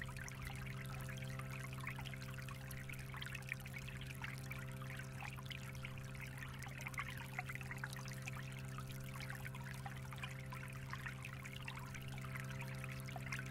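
Shallow forest stream trickling over pebbles, a steady patter of small water sounds. A steady low hum lies underneath.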